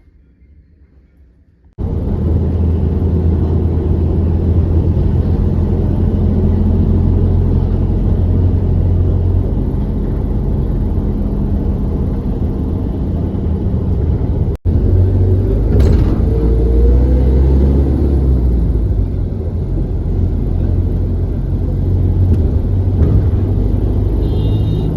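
Steady low road rumble of a moving vehicle, starting abruptly about two seconds in after a quiet moment.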